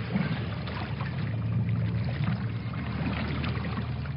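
A steady low rumble with water lapping and trickling over it, a dark riverside film ambience.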